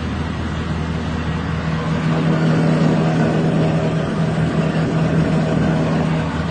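SN300R rice milling machine running with a steady mechanical drone, getting a little louder about two seconds in.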